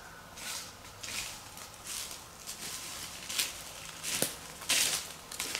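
Footsteps through dry leaf litter on the forest floor, about one step every three-quarters of a second, the loudest near the end.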